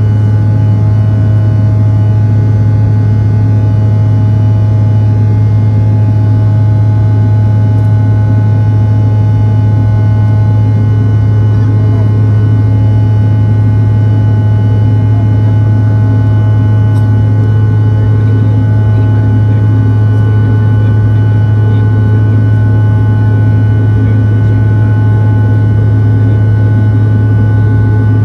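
Steady cabin noise of a Bombardier CRJ-900 climbing after takeoff: the drone of its rear-mounted GE CF34 turbofan engines and the rush of air past the fuselage, with a loud low hum under several faint steady whining tones, unchanging throughout.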